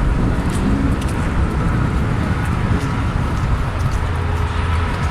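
Motor vehicles running, a steady low rumble with a faint steady whine over it.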